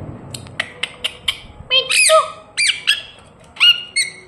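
Ringneck parrot giving a quick series of short, sharp chirps and squawks: a few thin clicks at first, then louder calls that rise and fall in pitch, about a dozen in all.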